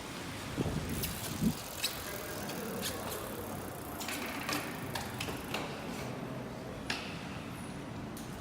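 A mountain bike being ridden or handled: sharp clicks and knocks over a steady background hiss, with a few louder thumps in the first two seconds.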